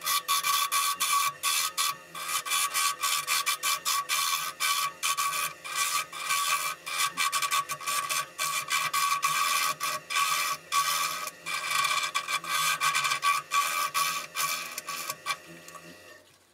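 Jet 1221 VS wood lathe spinning a spalted wood bowl while a turning tool cuts the inside: fast, uneven scraping and chatter over a steady whine from the lathe.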